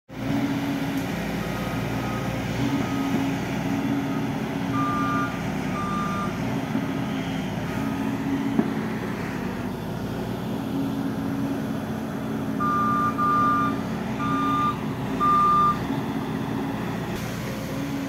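Volvo EC210 tracked excavator's diesel engine running steadily under hydraulic load, with an electronic warning alarm beeping in two-tone bursts, loudest about five seconds in and again from about twelve to sixteen seconds. A single sharp knock comes about eight and a half seconds in.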